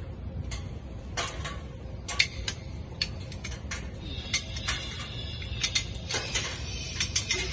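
Irregular metallic clicks and clinks from a hand-operated chain hoist being worked, its chain rattling, over a steady low hangar rumble.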